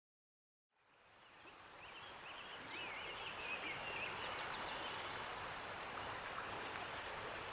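Outdoor nature ambience fading in from silence about a second in: a steady rushing background, with a bird singing a few short warbling phrases around two to three seconds in.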